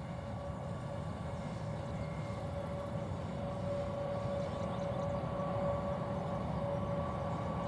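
WAG9 electric locomotive hauling a long freight train: a low rumble of wheels and wagons under a steady high whine, growing slightly louder.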